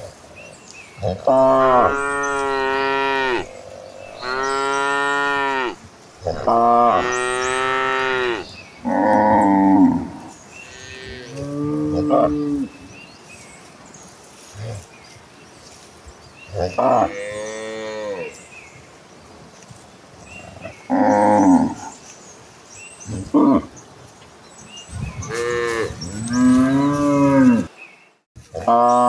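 Cattle mooing repeatedly: about ten long moos at differing pitches, each lasting a second or two, with short pauses between them.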